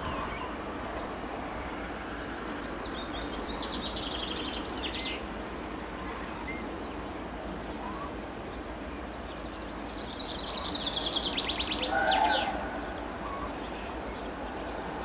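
A songbird singing two trilled phrases of quick repeated notes, each ending in a short flourish, over steady background noise.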